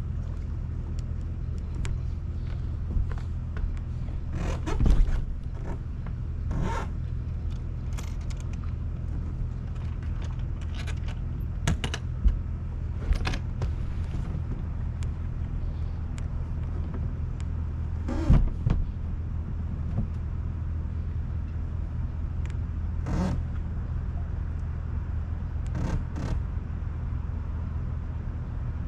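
An engine idling steadily, with scattered clicks and scrapes and a few louder knocks, the loudest about five seconds in and again around eighteen seconds.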